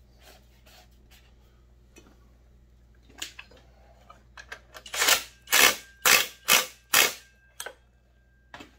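A cordless impact driver hammering in five short, loud bursts about half a second apart, a little over halfway through, driving the clutch onto a McCulloch PM 700 chainsaw's crankshaft. Lighter ticks and knocks come before, as the tool is fitted to the clutch.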